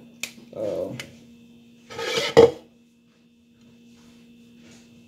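Kitchen clatter of plastic and metal as a mesh sieve of carrot pulp is worked over a plastic measuring jug and a plastic blender cup is set down: a click near the start and a louder clatter about two seconds in that ends in a sharp knock. A faint steady hum runs underneath.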